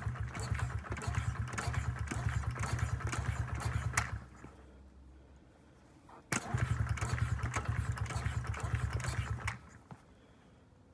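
A 2009 Honda CRF50F's small single-cylinder four-stroke engine catching and running for about four seconds before dying. A couple of seconds later it catches again suddenly and runs about three seconds before cutting out. The engine will not keep running, which the owner puts down to leaving the choke on too long.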